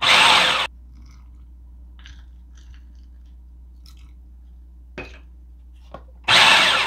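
Food processor pulsing pie-crust dough in short bursts, its blade chopping the crumbly flour-and-butter mix: one pulse stops under a second in and another starts near the end. Between them, faint small taps and clicks.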